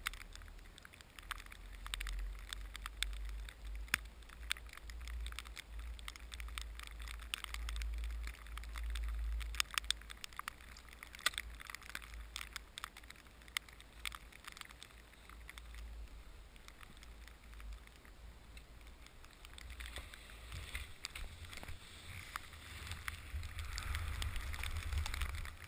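Skis sliding and scraping over heavy wet snow, with irregular sharp crackles and clicks, over a low wind rumble on the microphone. The snow hiss grows denser and louder near the end.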